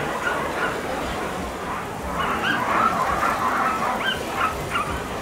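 A team of sled dogs barking and yipping, many short calls overlapping one after another.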